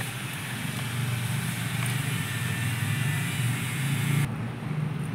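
Steady low rumble of a running engine, with a hiss above it that drops away suddenly about four seconds in.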